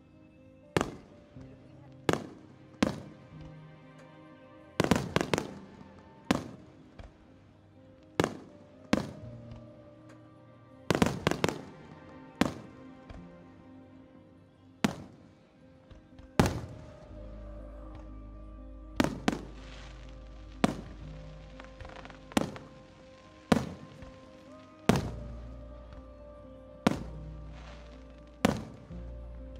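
Aerial firework shells bursting in a show: about two dozen sharp booms, each with a short rumbling tail, coming every second or so and sometimes two or three close together. Music plays underneath throughout.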